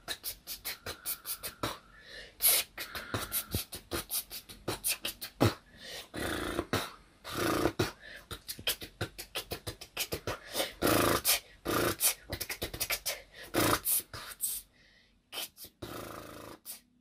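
A boy beatboxing: a fast, rhythmic run of mouth-made clicks, snares and kick sounds, thinning out to a few last sounds near the end.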